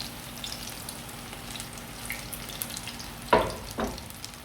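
Hot oil sizzling and crackling steadily in a frying pan, with two short, louder knocks near the end.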